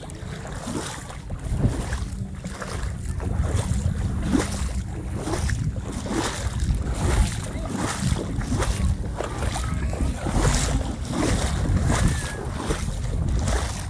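Wind rumbling on the microphone over water sloshing and splashing around kayak paddles, with frequent short splashes or knocks.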